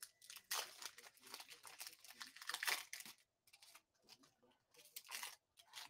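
Foil wrapper of a Panini Mosaic football card pack being torn open and crinkled by hand, in several short bursts.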